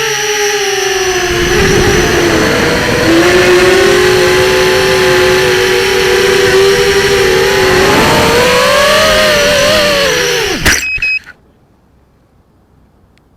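FPV racing quadcopter's motors whining loudly, the pitch falling, holding steady, then rising and dipping with throttle changes. About eleven seconds in there is a sharp knock and the motors stop abruptly.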